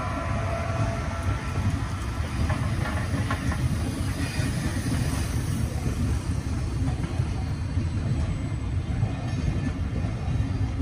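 Berlin S-Bahn class 485 electric multiple unit passing close by, its wheels and running gear making a steady rumble on the rails.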